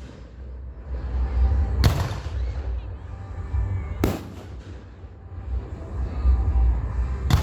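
Three sharp, loud bangs about two to three seconds apart, each followed by a short echoing tail, over a steady low rumble.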